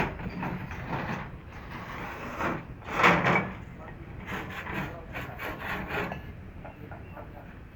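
Repeated rough scraping strokes, one long loud stroke about three seconds in, then a quicker run of shorter ones that fades near the end.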